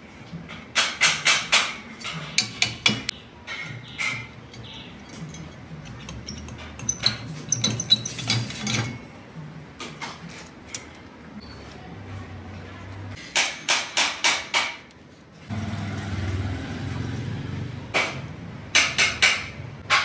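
Sharp metal-on-metal taps on a square steel tube clamped in a bench vise, coming in quick runs of four or five strikes, several times over, as a cut flap of the tube is worked into shape, with quieter handling noise between the runs.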